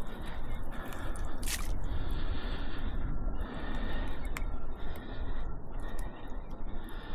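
Wind buffeting the microphone as a low, uneven rumble, with a couple of brief clicks from handling fishing line and weeds.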